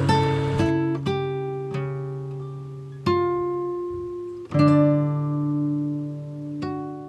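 Background music: a guitar plays slow, separately struck chords and notes, each ringing out and fading before the next.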